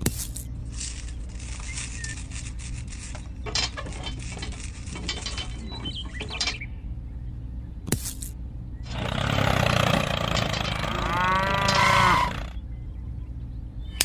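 Cow moo sound effect: one long call bending up and down in pitch, a few seconds long, in the second half over a steady low hum. Before it come several seconds of rustling and clicking as a plastic hose and spray nozzle are handled.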